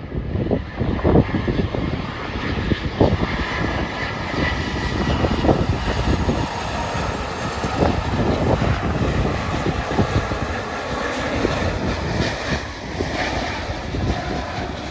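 An Airbus A330-300's Rolls-Royce Trent 700 jet engines on final approach, a loud, steady engine drone with a thin whine, as the airliner flies low past on its way to touchdown.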